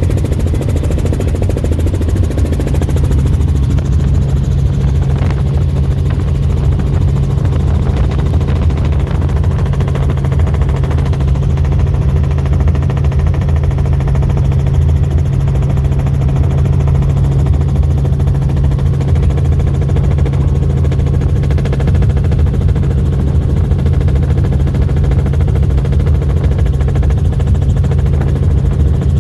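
Helicopter's engine and rotor running at a steady drone in flight, loud and unchanging, with a strong low hum.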